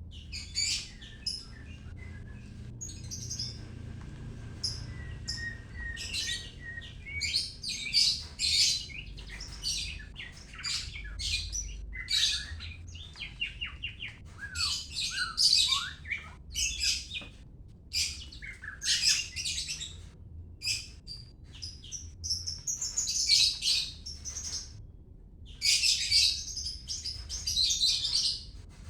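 White-rumped shama of the Medan type singing: a long run of varied high phrases of quick notes and whistled glides, broken by short pauses.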